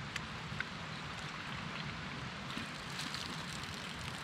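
A steady, even hiss with a few faint ticks.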